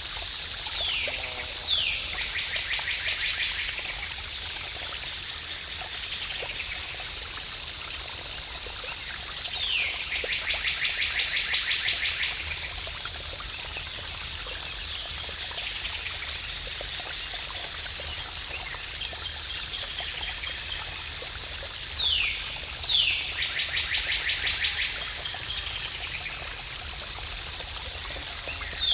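Waterfall rushing steadily, with a songbird singing a repeated phrase about every ten seconds: one or two quick falling whistles, then a fast trill lasting a couple of seconds.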